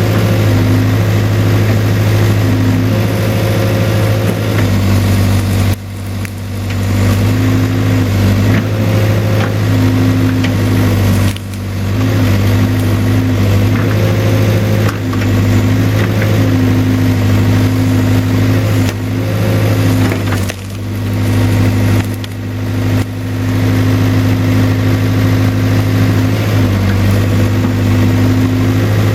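Case 580K backhoe's four-cylinder diesel engine running steadily while the machine works. The sound drops off sharply and builds back up several times.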